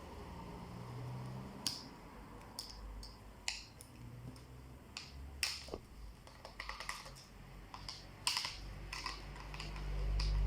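Irregular small clicks and snaps of plastic and small metal parts as a Lenovo IdeaPad Z500 laptop is handled and taken apart, with a few short rattling clusters of clicks.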